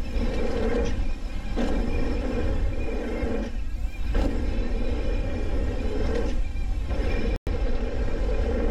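Wind rumbling on the camera microphone and knobby tyres rolling over packed dirt as a Trek Fuel EX mountain bike is ridden fast through a line of jumps. The sound cuts out for an instant about three quarters of the way through.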